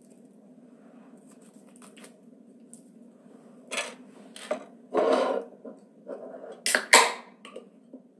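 A man coughing and clearing his throat a few times, starting about four seconds in, the two loudest coughs close together near the end, over a low steady hum.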